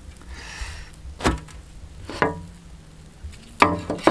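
Four sharp slaps at uneven intervals: cooked Kerala parottas being hand-clapped and crushed on a steel plate to open up their flaky layers.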